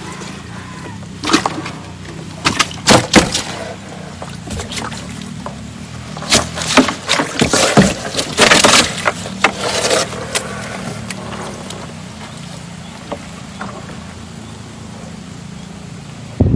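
Large netted fish flopping and slapping wetly against each other and the boat's bottom as they are pulled from a cast net: a few sharp slaps early, a dense run of slaps and knocks in the middle, then quieter, over a steady low hum.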